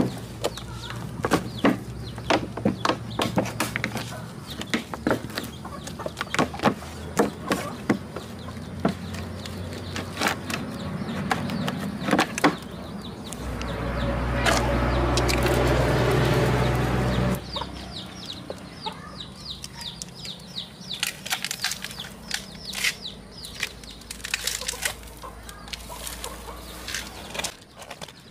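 Scattered knocks and taps on cement and a plastic mould, with chickens clucking. For about four seconds in the middle a steady rushing noise with a low hum is louder than the rest.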